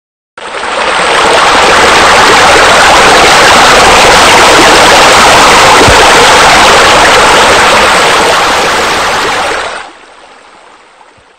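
Loud, steady rush of splashing water, a sound effect for a pool's deck jets and bubblers. It starts abruptly about half a second in, then drops sharply near the end to a faint, fading tail.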